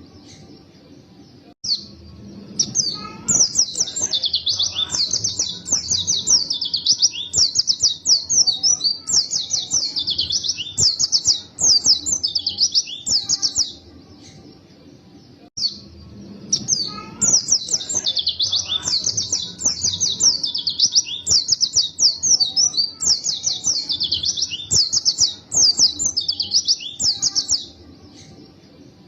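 White-eye (pleci) singing a fast, high, chattering song in two long bouts, each about twelve seconds, with short pauses before and between them.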